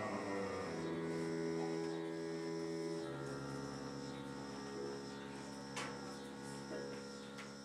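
Digital electronic music: sustained droning chords that shift about a second in and again about three seconds in, over a faint high tone pulsing on and off.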